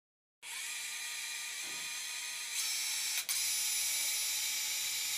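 Surgical power drill with a wire-driver attachment running, backing a guide wire out of the bone: a steady high-pitched whine that gets louder about halfway through, with a brief catch just after.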